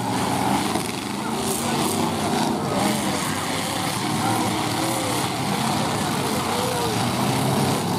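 Several demolition derby pickup trucks' engines running together, revving up and down over and over in short rising-and-falling surges as the trucks push into one another.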